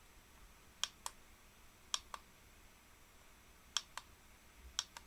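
Four pairs of sharp, light clicks, each pair about a fifth of a second apart, like small buttons being pressed and released.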